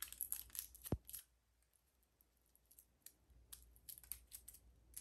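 Foil shield of a DC power cable crinkling and tearing as it is peeled off by hand: faint scattered crackles, with a soft bump about a second in. The crackles thin out in the middle and come back sparsely near the end.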